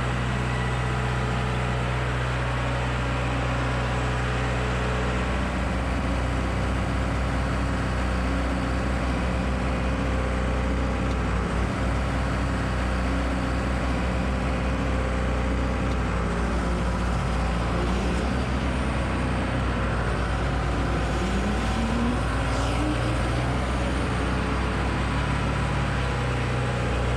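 Diesel engine running at a steady speed, a continuous low drone with no misses.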